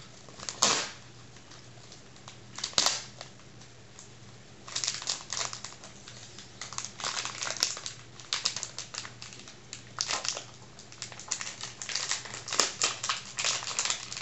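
Clear plastic bag of pipe tobacco being handled and opened by hand: two sharp crackles in the first few seconds, then repeated bursts of crinkling for the rest of the time.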